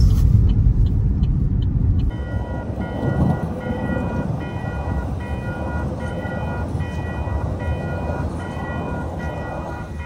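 Vehicle road noise, a loud low rumble for about two seconds, then dropping abruptly to a softer steady rumble. Faint background music with a repeating pattern of notes plays over it.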